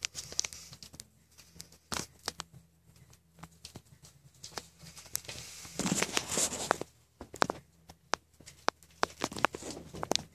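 Rustling and crinkling noises with scattered sharp clicks, and a denser rustle about six seconds in.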